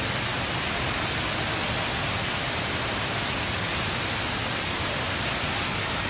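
Rain Vortex indoor waterfall, a column of water pouring from a round opening in a glass dome into the pool below, making a steady, even rush of falling water.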